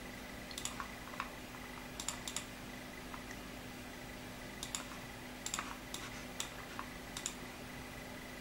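A computer mouse clicking through software menus: about a dozen short sharp clicks at irregular spacing, some in quick pairs, over a faint steady hum.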